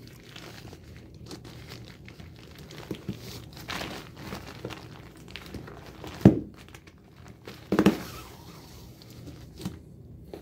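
Plastic tarp crinkling and rustling as paracord is wrapped and pulled tight around a rolled bedroll, with a few louder handling noises, the sharpest about six seconds in.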